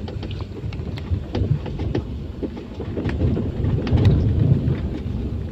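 Excavator working among oil palm fronds: an uneven low rumble with many sharp clicks and cracks throughout.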